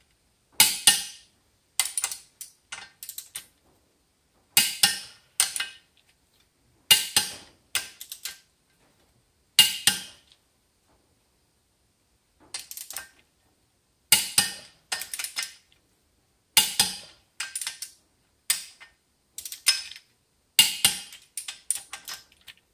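Torque wrench ratcheting and clicking on the flex plate bolts in short bursts of sharp metallic clicks, one burst every couple of seconds as the bolts are taken in pattern to a final torque of 105.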